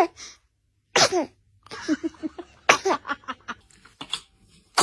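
Several small, high sneezes in quick succession, each a sharp burst trailing off in a short falling squeak.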